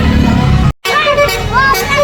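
Tour bus's 'basuri' musical horn playing a tune over the low rumble of the bus engine. The sound cuts out abruptly for a split second about three-quarters of a second in, then a new horn tune with gliding up-and-down notes starts.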